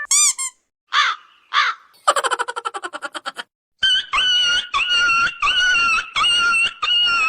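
A run of short sound effects: a brief chirp, two crow caws, a fast buzzing rattle, then five repeated calls of steady pitch.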